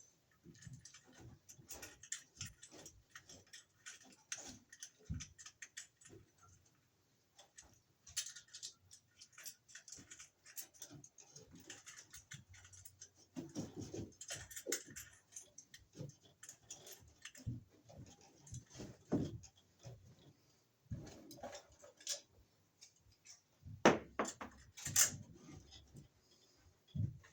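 Irregular small clicks, taps and rustles of hand work with tools and small metal and plastic parts, with a few louder knocks about 24 seconds in.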